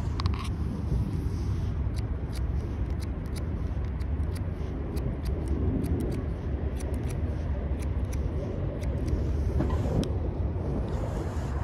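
Barber's scissors snipping hair over a comb in a run of quick, irregular snips, over a steady low rumble of wind or distant traffic.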